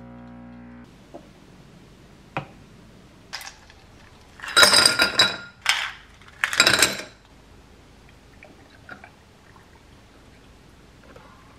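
A coffee machine hums steadily and cuts off just under a second in. Ice cubes are then dropped into a tall glass in three loud clattering bursts, followed by a faint pour of milk over the ice.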